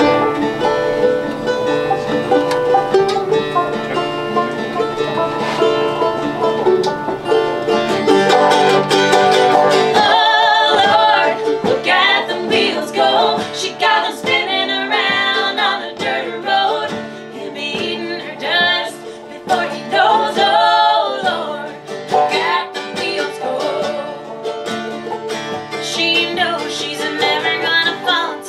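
Live acoustic string band playing: strummed acoustic guitar with mandolin-type picking, instrumental at first, then women's voices come in singing together about ten seconds in.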